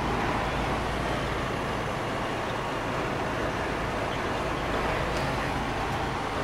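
Steady engine drone and road noise inside a semi-truck's cab at highway speed.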